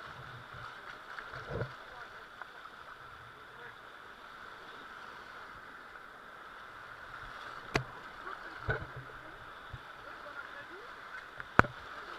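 River water rushing steadily around a raft, with a few sharp knocks in the second half, the loudest near the end.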